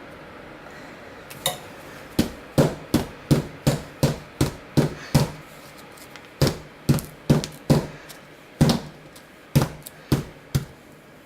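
A soap-filled cardboard Pringles-can mold knocked down repeatedly on the work surface to settle hot-process soap batter and drive out air pockets. About twenty dull knocks come in three runs, a little over two a second.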